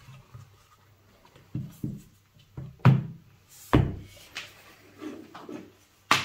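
Plastic desk lamp being handled on a table: a series of knocks and thuds as its arm, light bar and base are moved and set down, the loudest near the middle, with a sharp knock at the end.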